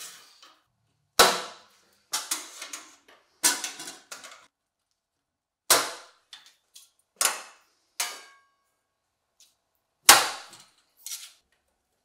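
Nordfab sheet-metal duct parts (pipe, sleeve, clamp and blast gate) clanking as they are handled and fitted together: about eight sharp metallic hits, some with a brief ring.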